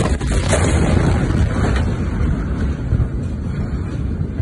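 Blast from the Beirut port ammonium nitrate explosion reaching a phone's microphone: a sudden bang at the start, then a steady, deep roar of noise.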